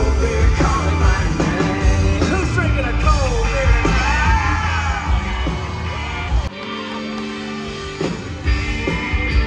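Live band playing, with a male lead vocal over acoustic guitar, drums and bass, heard from the audience. About six and a half seconds in, the drums and bass drop out, leaving a couple of seconds of held chords, and the full band comes back in near the end.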